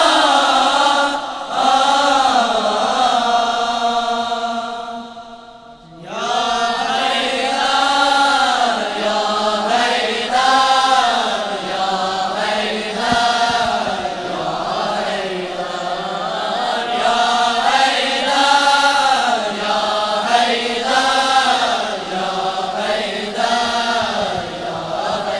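Choir of boys and young men singing a devotional tarana together, in long held notes that swell and fall. The singing fades to a short break about five seconds in, then starts again.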